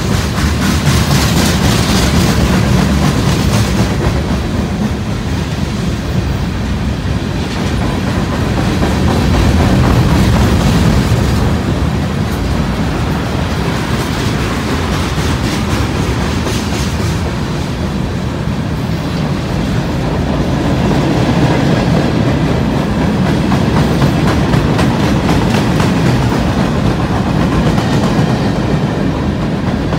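Freight cars of a mixed freight train rolling past close by: a steady rumble of steel wheels on rail with a rapid, rhythmic clickety-clack, swelling slightly and easing as different cars go by.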